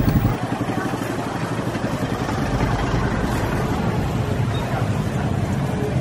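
Street traffic noise. A nearby engine with a fast, pulsing low note fades away within the first half-second, leaving a steady wash of traffic and street noise.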